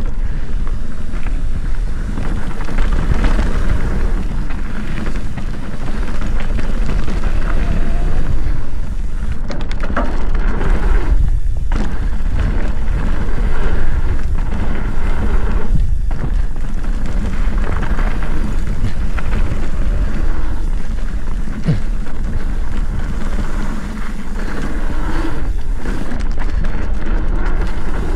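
Mountain bike descending a dirt trail at speed: a loud, steady rush of wind buffeting the microphone over tyre noise and the bike rattling and knocking over bumps, easing briefly a few times.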